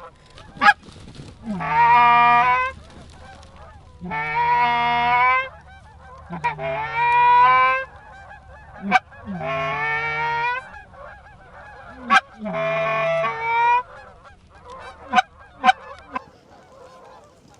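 Canada goose honking: a series of five drawn-out honks about a second each, roughly every two and a half seconds, with short sharp clucks in between.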